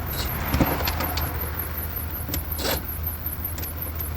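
Scattered light clicks and one short rasp about two and a half seconds in, from hand tools working the 8 mm bumper bolts, over a steady low hum.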